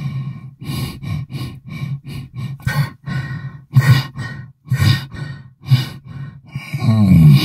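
Designed low, aquatic-style sound effect: a run of short, irregular pulses, about two to three a second, then a longer sound that bends in pitch near the end.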